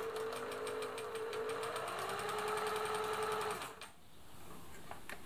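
Singer 766 sewing machine running at a steady speed as it sews a straight stitch, with a held hum and a fast, even stitching rhythm; it stops a little under four seconds in, followed by a few light clicks.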